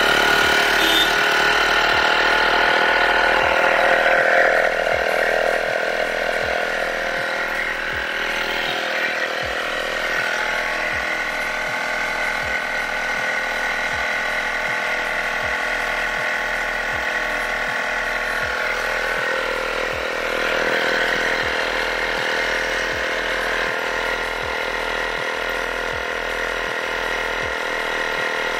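Woscher 801 12V portable tyre inflator switched on and running steadily, its compressor pumping air into a partly deflated car tyre as the pressure climbs. The sound starts abruptly and is a little louder for the first few seconds.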